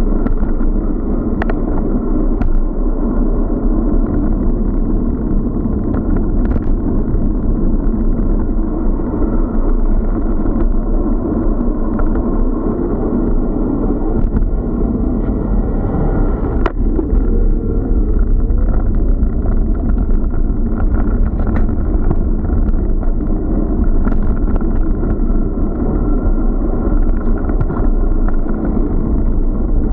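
Steady, muffled rushing of wind and road noise on the microphone of an action camera riding on a moving bicycle, with scattered small clicks and knocks.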